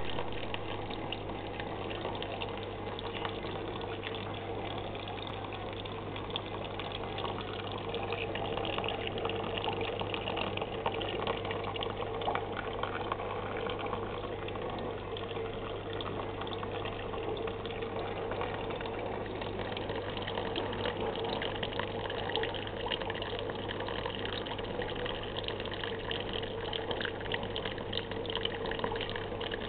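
Aquarium air pump humming steadily, with water bubbling continuously from an air line in the tank.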